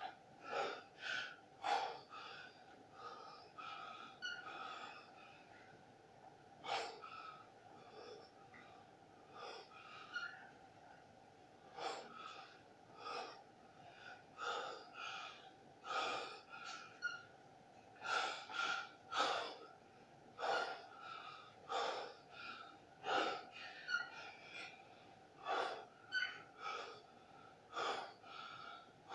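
A man breathing hard through push-ups: short, forceful breaths and exhales, roughly one every second or so, over a faint steady hum.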